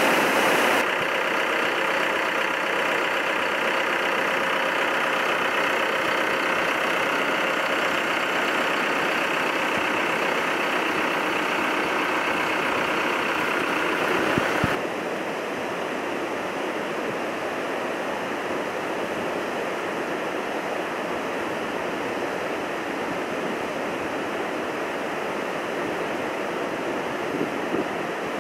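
Swollen floodwater rushing and pouring over a dam: a steady, even noise of fast-moving water that changes abruptly about a second in and again around halfway.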